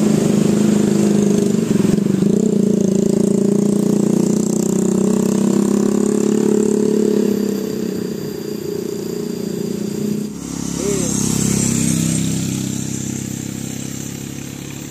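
A bus passing close by with a loud, steady, deep sound for about ten seconds. An abrupt cut then brings a quieter vehicle sound that fades away.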